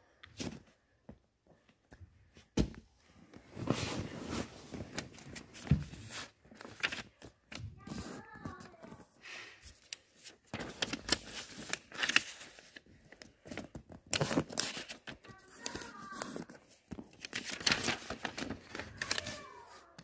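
A sheet of paper being folded by hand on a tabletop: irregular rustling, sliding and crinkling as the folds are made and the creases pressed down, with a few soft thumps.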